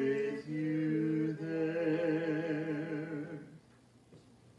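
A man and a woman singing an unaccompanied duet in harmony, holding the closing notes of a carol with vibrato. The singing ends about three and a half seconds in.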